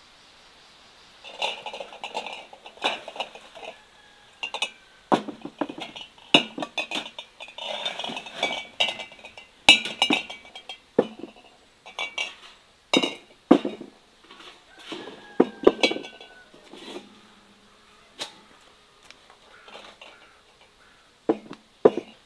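Large empty glass canning jars clinking and knocking together as they are handled and set down, a string of sharp knocks with a glassy ring starting about a second in.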